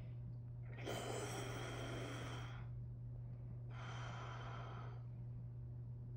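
A man snoring in his sleep: two noisy breaths, a long louder one about a second in and a shorter one about four seconds in, over a low steady hum.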